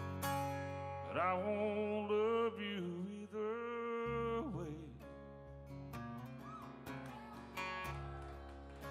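Live country music: two acoustic guitars playing, with a man singing a drawn-out line over them for the first few seconds.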